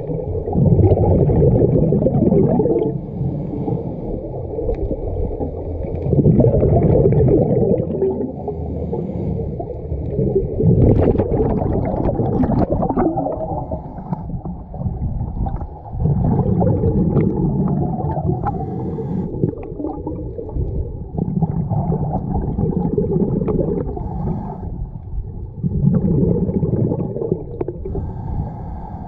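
Scuba diver breathing through a regulator underwater: a muffled burst of exhaled bubbles about every four to five seconds, with quieter inhalations between.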